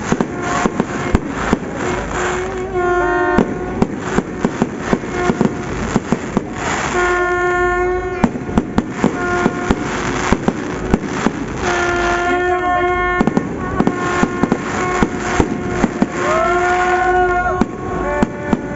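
Fireworks crackling: a dense, continuous run of sharp pops and bangs. A held pitched tone comes and goes over the crackle every second or two, rising in pitch once near the end.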